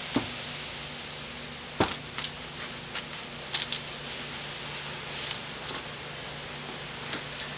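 Scattered sharp metal clicks and knocks from a Chrysler 727 automatic transmission valve body and its parts being handled and tipped on a workbench, over a steady low hum.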